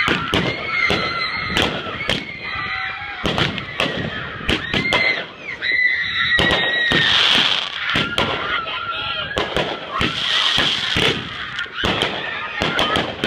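Aerial fireworks bursting: a quick, irregular series of sharp bangs and crackles, with high whistling tones running under them.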